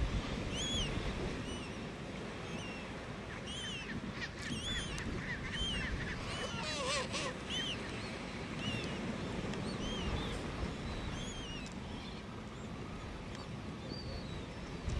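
Chinstrap penguin chicks peeping: short, high calls that rise and fall, repeated about twice a second, over steady low background noise. A lower, buzzier call cuts in briefly near the middle.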